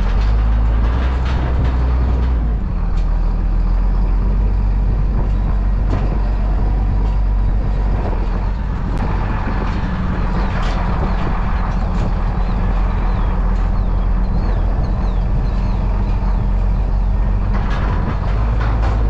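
Engine of a heavy farm vehicle running steadily, its pitch rising briefly about two seconds in, with a few scattered clanks.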